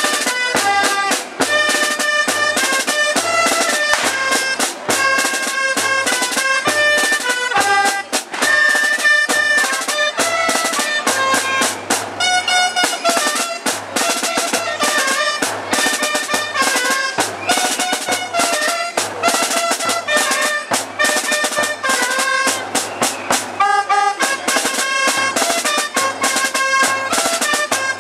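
Traditional folk dance tune played on shrill double-reed pipes over a steady drum beat, the melody stepping between held notes.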